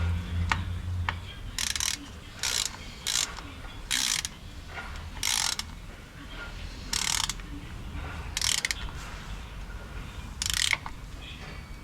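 Ratchet wrench clicking in about eight short bursts, one per back-swing, as the transfer case drain plug is run in and tightened.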